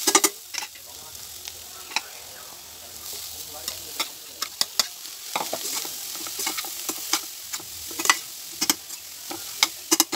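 A metal spoon scraping and knocking against a pan as grated cauliflower and chopped vegetables are stirred, with frequent sharp irregular clicks over a steady sizzle of frying.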